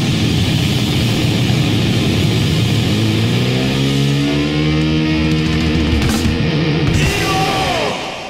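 Heavy metal band playing the last bars of a song, loud and dense. A couple of final hits and a falling slide come near the end, and the sound then dies away.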